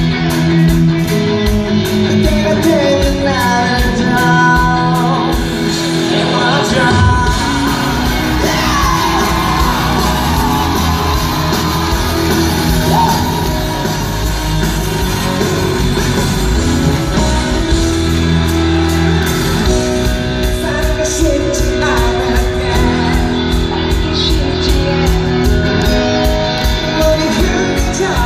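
Rock song sung by a male singer, with guitar and drums keeping a steady beat, echoing in a large hall.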